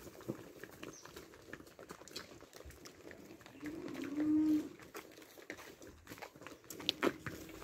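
A single short low call from a farm animal, about a second long, near the middle, over scattered small knocks and clicks, with a few sharper ones near the end.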